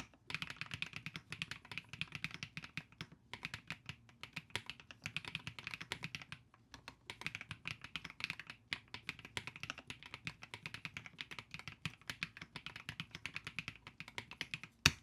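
Typing on an Epomaker Split 70 split mechanical keyboard: rapid key clacks in runs with brief pauses, and one louder clack near the end.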